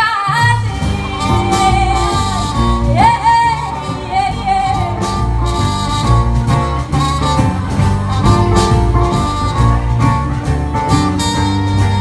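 Live folk band playing: strummed acoustic guitars with percussion and low notes underneath. A woman's voice sings long held notes that slide up into pitch near the start and again about three seconds in.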